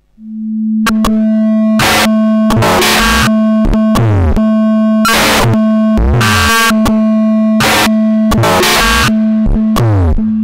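Experimental electronic noise music from a SOMA R.o.a.t. synthesizer, Nux Atlantic effects pedal and monome norns. A steady low drone comes in just after the start. From about a second in it is cut through by repeated loud bursts of noise and by electronic tones sweeping downward in pitch.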